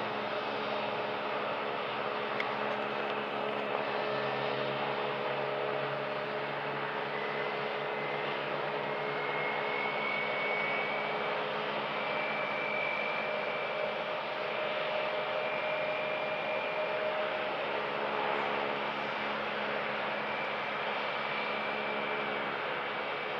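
Airbus A320neo's Pratt & Whitney PW1100G geared turbofans at taxi power: a steady rushing noise with faint steady tones and a high whine that comes in about eight seconds in and holds.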